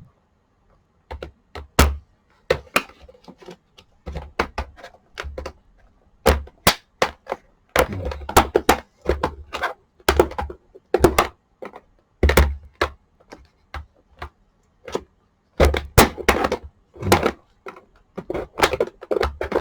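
Irregular knocks, clicks and clatters of a rice cooker's hard parts being worked and prised loose by hand during disassembly, many sharp taps coming in uneven clusters.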